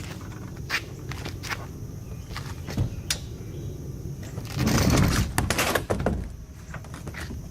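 Scattered knocks and thumps of handling, with a louder rumbling, scraping burst about halfway through.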